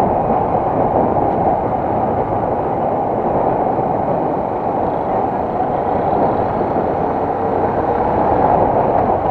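Steady riding noise from a Yamaha M-Slaz motorcycle under way: wind rushing over the microphone with the single-cylinder engine running underneath, its pitch shifting slightly partway through.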